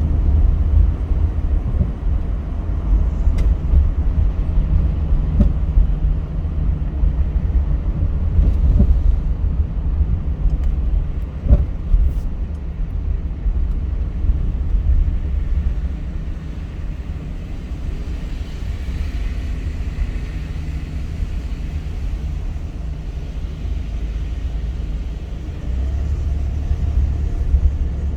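Car being driven: steady low engine and road rumble, with a couple of sharp knocks about eleven to twelve seconds in.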